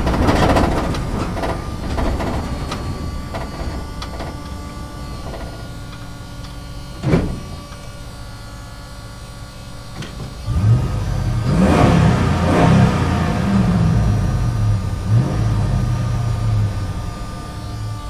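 Truck driving in a parking structure. Its engine noise is loud at first and fades over several seconds, with one short sharp knock about seven seconds in. From about ten and a half seconds the engine comes back louder, revving with a wavering pitch, and eases off near the end.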